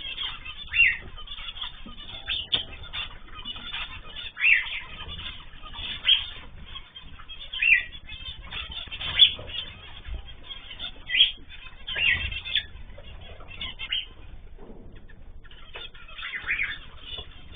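Ornamental cage birds (cockatiels, zebra finches, canaries) giving short chirping calls every second or two, over a low background rumble.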